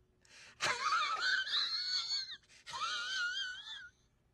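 A man's high-pitched, wavering wail in two long bouts, a comic sobbing cry, the second bout starting a little under three seconds in.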